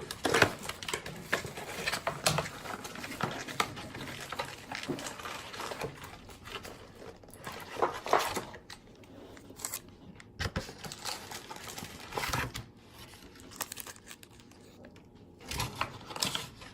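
Plastic wrapping on baseball card packs being crinkled and torn open by hand: an uneven run of crackles and sharp rustles.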